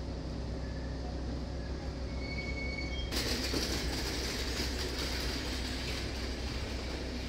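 Steady outdoor town ambience: a low rumble with a few brief high tones, turning into a brighter, fuller hiss about three seconds in.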